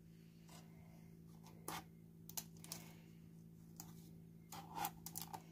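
Faint, scattered light clicks and taps of a knife and a plastic tiffin box being handled on a countertop, a little busier near the end, over a low steady hum.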